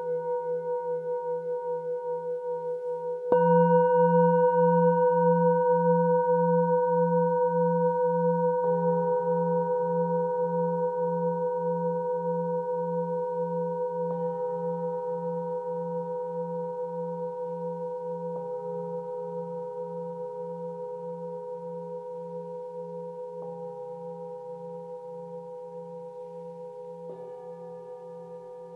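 Bronze singing bowls struck one after another with a wooden mallet, about every four to five seconds, each strike adding a new note to the ringing. The overlapping tones hang on with a slow pulsing wobble and fade gradually. The strongest strike comes about three seconds in.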